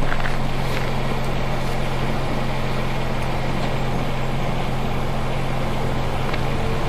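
SBB Re 460 electric locomotive approaching slowly: a steady low electric hum over an even rumble.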